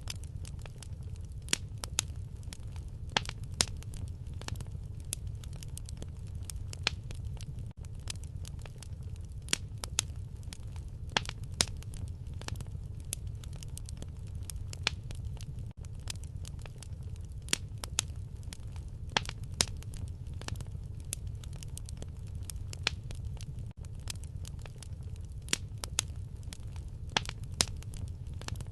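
Fire burning in a fireplace: a steady low rumble of flames with irregular sharp crackles and pops, the loudest every second or two.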